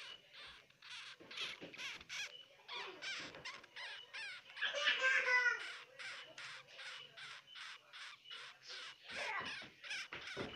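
Baby hamster squeaking in a rapid run of short, high-pitched chirps, about three a second, with one longer, louder squeal about five seconds in.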